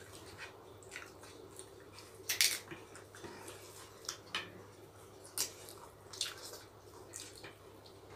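Close-up eating sounds: wet mouth smacks from chewing and squishes of fingers mixing rice and chicken curry, in short irregular clicks, the loudest about two and a half seconds in.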